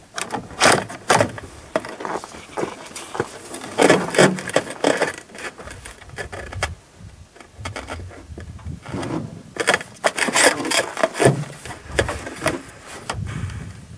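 Handling noise from a bolt-action rifle being readied to fire: rubbing, scraping and many scattered clicks and knocks, in clusters about a second in, around four seconds and around ten seconds.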